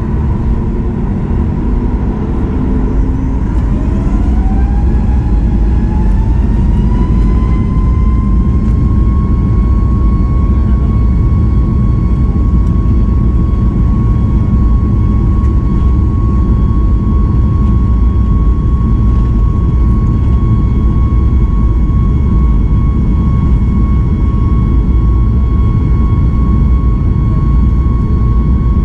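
Boeing 737 MAX 8's CFM LEAP-1B jet engines spooling up to takeoff thrust, heard from inside the cabin beside the wing. Starting about four seconds in, a whine rises for several seconds and then holds steady over a heavy rumble as the jet accelerates down the runway.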